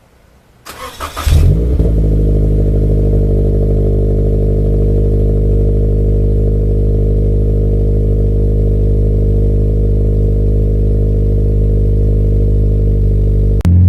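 Toyota 86's flat-four boxer engine, fitted with an MXP full aftermarket exhaust, cold-starting: the starter cranks for about a second, the engine catches with a loud flare, then settles into a steady idle.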